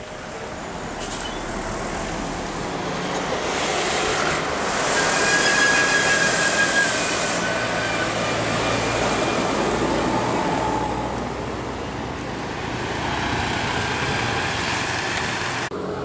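Large diesel tour bus driving slowly past at close range, its engine and tyre noise swelling as it nears. It is loudest about five seconds in, with a hiss on top, then eases off. No horn sounds.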